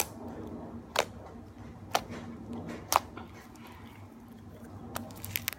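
Slime being handled for ASMR: sharp clicking pops about once a second, four times, then a quick run of smaller clicks near the end.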